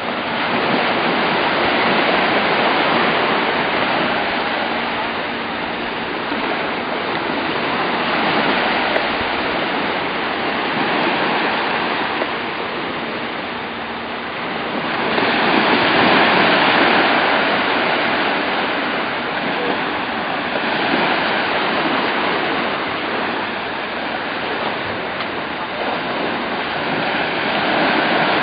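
Sea surf washing on the shore: a steady rushing hiss that swells and fades every several seconds, loudest a little past the middle.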